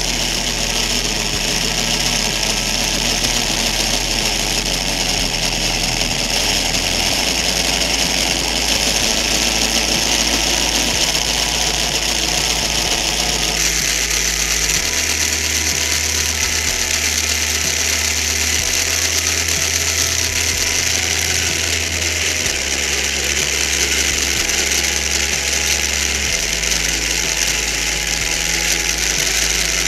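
Small electric motor driving a 3D-printed plastic gearbox and front differential, the gears whirring steadily as the front wheel spins. The tone shifts slightly about halfway through.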